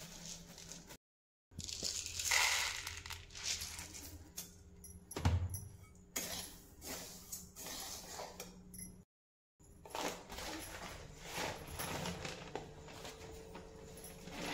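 Coriander seeds dry-roasting in a steel kadhai, stirred with a wooden spatula: a dry rattling, scraping rustle with scattered clicks and one heavier knock about five seconds in. Plastic and paper rustle near the start and end, and the sound cuts out twice briefly.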